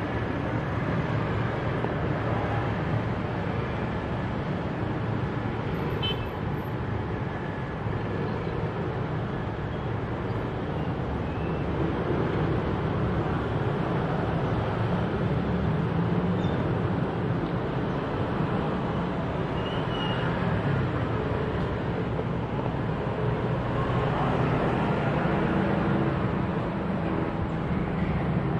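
Steady low outdoor rumble, with the drone of a Piper Archer TX light plane's piston engine and propeller coming up near the end as the plane draws closer.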